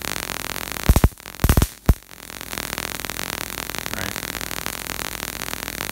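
A 50,000-volt dual-polarity high-voltage rig running with a steady crackling buzz of arcing and discharge. A quick cluster of loud, sharp spark snaps from breakover discharges comes about one to two seconds in.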